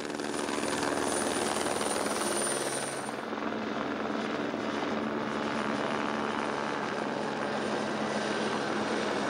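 Eurocopter AS555 Fennec helicopter flying, a steady rotor and turbine sound. A thin high whine on top cuts off about three seconds in.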